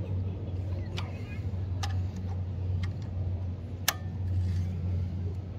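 A 6 mm Allen wrench tightening a bicycle pedal into an aluminium crank arm: a few sharp metal clicks as the wrench works in the spindle, one louder about four seconds in, over a steady low hum.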